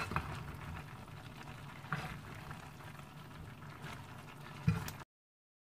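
Chicken-and-cabbage chopsuey simmering in a frying pan with a steady hiss, while a wooden spatula turns the vegetables and knocks against the pan three times. The sound cuts off abruptly about five seconds in.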